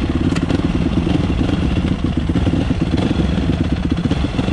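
Yamaha dirt bike engine idling steadily, a fast, even putter of firing pulses with no revving.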